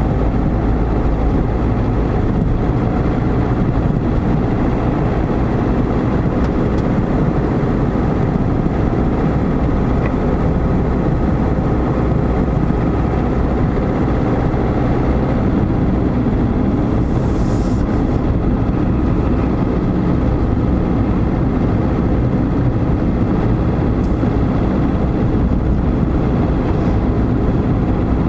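Steady road and engine noise of a moving car heard from inside the cabin, with a brief hiss about two-thirds of the way through.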